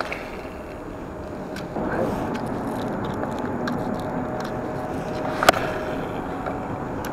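Steady rumble of road traffic on the highway bridges overhead, louder from about two seconds in. There is one sharp click about five and a half seconds in.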